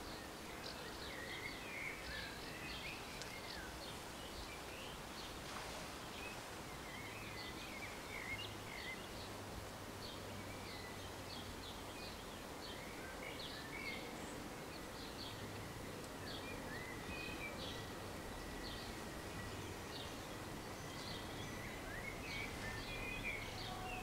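Outdoor ambience: small birds chirping and twittering over a steady background hiss. A faint steady high tone comes in about two-thirds of the way through.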